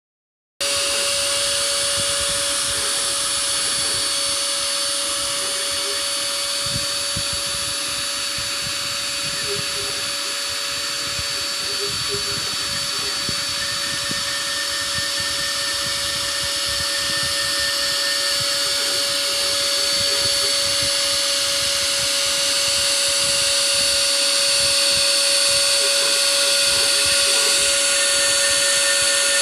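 Small CNC machine running: a steady motor whine with hiss throughout, and short lower tones that come and go as the machine's axes move.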